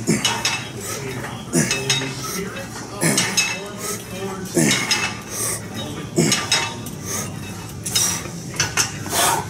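Metal clinking and clanking from a cable machine, its weight stack plates and cable attachment knocking once per repetition of an overhead triceps extension, about every one and a half seconds.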